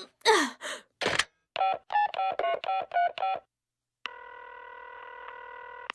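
Push-button telephone being dialled: a quick run of about ten short keypad beeps. After a pause, a steady ringing tone sounds in the earpiece as the call goes through.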